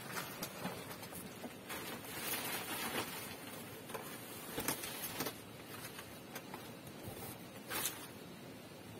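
Fresh fan-palm leaf rustling and tearing as it is stripped and worked by hand, with a few short sharp clicks.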